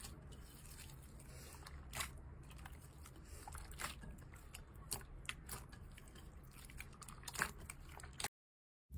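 Slime being squeezed and worked by hand: faint sticky crackles and small pops over a low hum, with a few louder snaps about two, five and seven seconds in. The sound drops out to silence shortly before the end.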